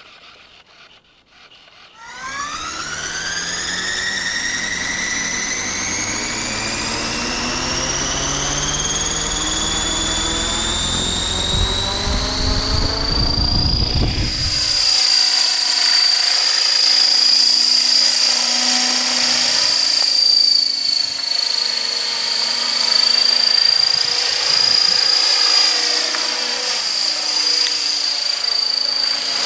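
Radio-controlled model's motor spooling up: a whine that rises steadily in pitch for about twelve seconds over a low rumble, then holds at a steady high pitch once the rumble drops away.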